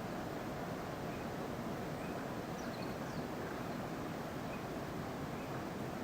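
Faint wild birds singing: short high chirps every second or so, with a few quicker higher notes about halfway through, over a steady rushing background noise.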